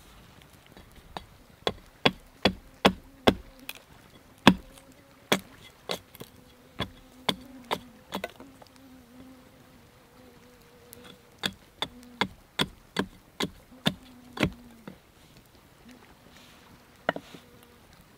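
Small axe chopping and shaping a wooden stick against a log: sharp knocks about two to three a second in two runs, with a pause in the middle and a last single knock near the end. A flying insect buzzes steadily close by underneath.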